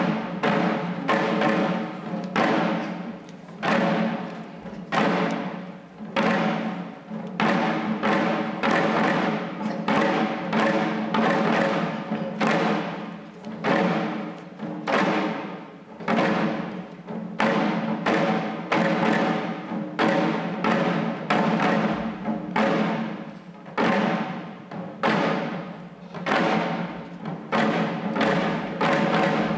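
Shishi odori deer-dance drums: several dancers beating the drums slung at their chests in a steady, even rhythm, about one to two strokes a second with louder accents.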